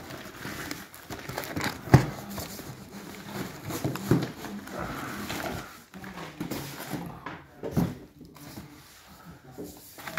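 Cardboard shipping box and boxed model kits being handled: cardboard scraping and rustling as boxes are lifted out and set down on a countertop, with a sharp knock about two seconds in and smaller knocks later.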